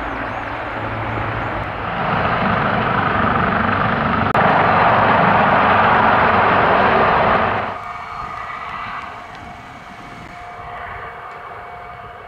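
CH-53E Super Stallion heavy-lift helicopter flying over, its rotor and turbine engines making a loud rushing noise. The noise grows louder about two and four seconds in, then falls off sharply about eight seconds in, leaving a quieter steady turbine whine.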